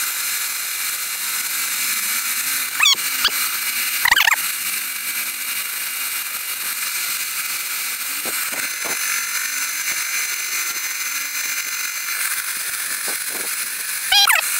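Cordless drill running with an ordinary tile bit grinding into hard porcelain tile, a steady high-pitched grinding hiss with a few brief squeals about 3 and 4 seconds in and again near the end. The bit is making slow progress and heating up in the porcelain.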